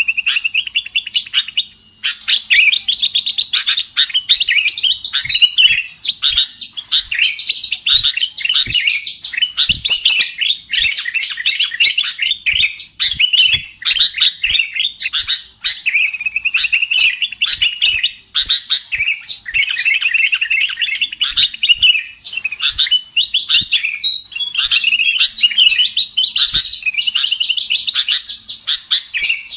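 Sooty-headed bulbuls calling without pause: a busy run of rapid, chattering and gliding notes with only brief breaks.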